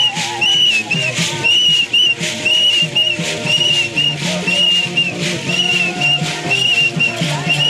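A whistle blown in short, repeated blasts about once or twice a second, keeping time over drumming and voices for the dance.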